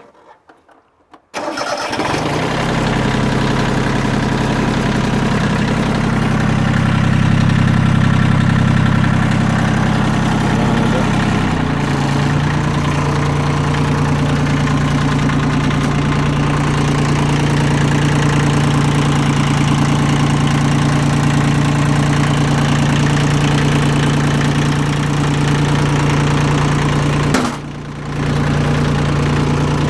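Yanmar F14D three-cylinder diesel tractor engine starting and then running steadily. About twelve seconds in the engine note changes to a new steady pitch, and near the end the sound briefly drops away for about half a second.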